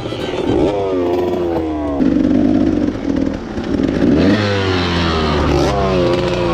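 Dirt bike engine revving hard, its pitch climbing and dropping several times as the throttle is opened and closed.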